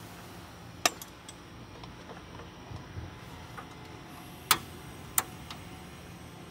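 Sharp metal clicks from a hand-held waffle iron being closed and set on the grate of a portable gas stove: a handful of separate clicks, the loudest about four and a half seconds in.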